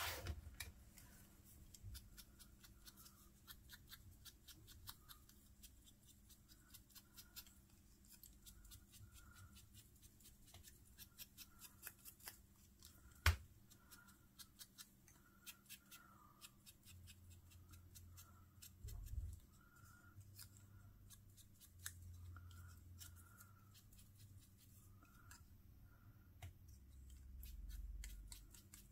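Faint, irregular light taps and clicks of an ink blending tool dabbing red ink from an ink pad onto small paper die-cut pieces, with one sharper click about 13 seconds in and a low bump around 19 seconds.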